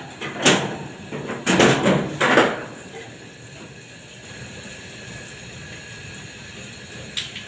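Metal knocks and bangs from work on a liquid oxygen tank trailer's valve fittings: one about half a second in, then three in quick succession, followed by a steady background noise and a single sharp click near the end.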